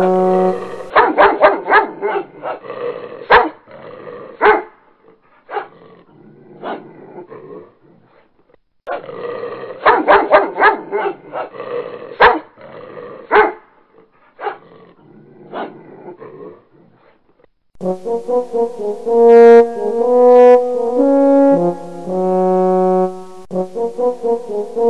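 A dog barking in sharp, clustered bursts, the run of barks heard twice over, then background music with held, brass-like notes in the last third.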